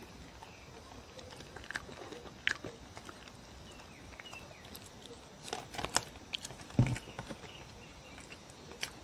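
A dog eating soft cake from a woven mat: quiet chewing, licking and mouth smacks, heard as scattered short clicks that cluster a little after the halfway point, with one heavier knock about seven seconds in.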